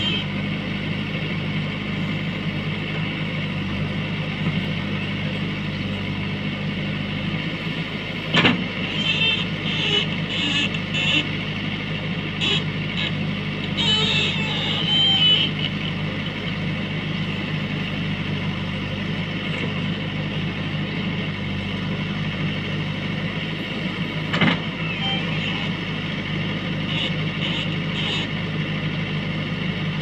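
JCB 3DX backhoe loader's diesel engine running steadily under load while the backhoe arm digs. A sharp metallic clank of the bucket sounds twice, about a third of the way in and again about four-fifths of the way in.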